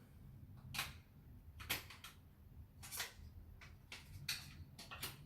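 Product box and packaging being handled: a series of faint, separate clicks and rustles, about one every half second to a second.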